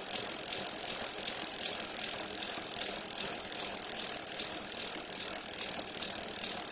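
Steady, rapid mechanical clicking, several clicks a second, over a constant high hiss.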